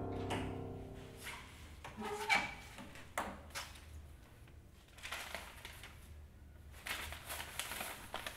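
Music fades out, then a door's lock clicks and the door opens, followed by sheets of paper rustling as they are handled.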